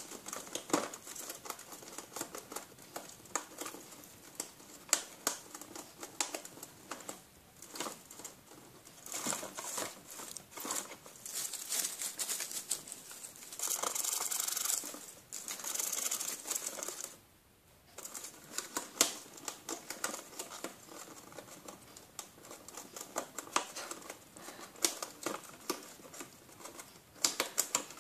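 Gerbil gnawing and shredding a cardboard box: a rapid, irregular patter of small clicks and crackles from teeth on cardboard. Denser tearing comes in the middle, with a brief pause a little after halfway.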